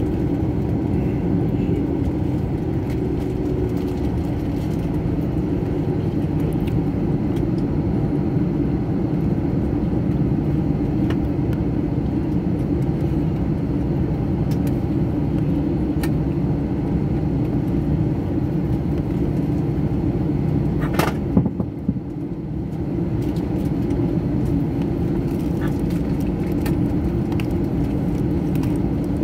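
Airliner cabin noise while taxiing: a steady low engine drone heard from inside the cabin. A brief knock about three-quarters of the way through, with the drone dipping for a moment after it.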